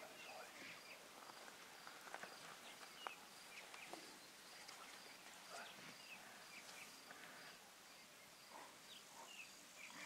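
Quiet bush ambience: scattered faint bird chirps and a faint high pulse, likely an insect, repeating about two or three times a second, with a few soft clicks.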